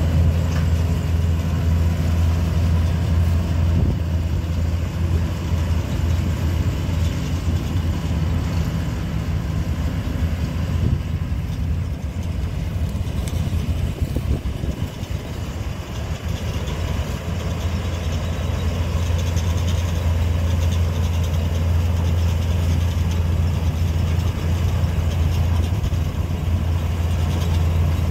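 Swaraj 8200 combine harvester's diesel engine running steadily while harvesting, a constant low hum. It fades somewhat about halfway through as the machine moves off and grows louder again toward the end.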